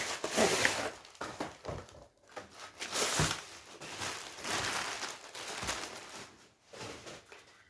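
Packaging rustling and crinkling in irregular bursts as ceiling fan blades are taken out and handled.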